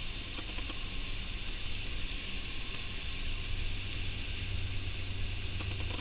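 Steady indoor background noise: a low hum with an even hiss over it, and a few faint ticks near the start and again near the end.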